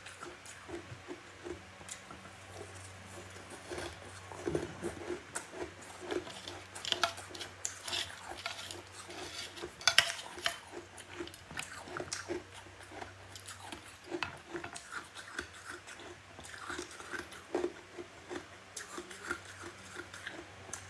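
Close-up bites and chewing of soft, powdery freezer-frost snow ice: irregular crunches and crackles, with the loudest crunch about ten seconds in.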